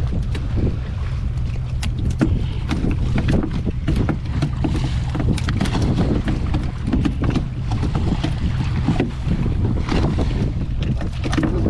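A boat engine running steadily, with wind buffeting the microphone. Scattered sharp knocks and slaps come from a handline being hauled in and a fish being pulled over the side.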